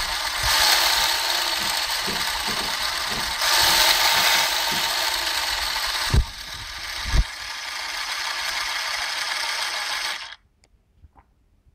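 Motorized 1/6-scale Ford 427 SOHC model V8 engine running, its moving parts giving a steady mechanical whirring clatter that swells twice. Two short knocks come around the middle, and it shuts off abruptly about ten seconds in.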